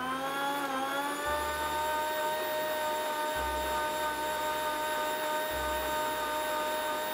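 Electric countertop blender running continuously, blending oats and peanut butter with milk into a thick drink. Its motor whine rises in pitch over the first second or so and then holds steady.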